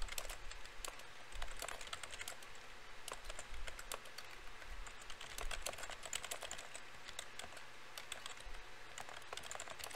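Typing on a computer keyboard: an irregular run of quick key clicks in short bursts with brief pauses.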